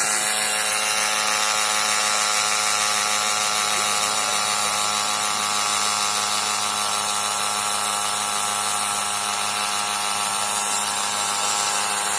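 Power drill set as a hammer drill, running at a steady speed with a constant hum and a fast rattle while drilling a hole.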